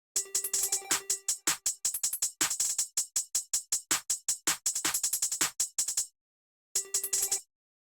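Programmed electronic drum beat with a rapid run of hi-hat hits and a short held tone under them. It plays, cuts off abruptly about six seconds in, starts again for under a second, then stops.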